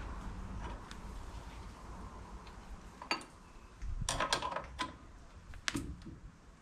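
Light metallic clicks and clinks of a spanner and end mill being handled at a mill's ER32 collet nut while it is snugged up by hand. There is one click about three seconds in, a short cluster around four seconds, and another near six.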